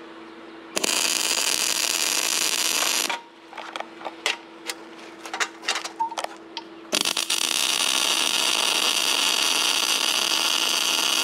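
MIG welder arc crackling and hissing as a bead is laid, in two runs: a short one of about two seconds near the start and a longer one of about five seconds from about seven seconds in, with scattered short crackles between them. A low steady hum runs underneath.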